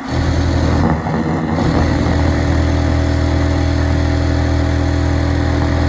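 New-Tech FD-62G-06MS six-thread flat seam industrial sewing machine, with a direct-drive servo motor, running at speed while stitching spandex jersey: a loud, steady mechanical hum and whir that starts abruptly and settles into an even pitch after a second or two.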